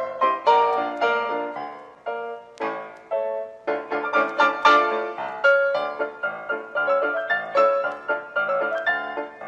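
Background piano music: a melody of quick struck notes, several a second.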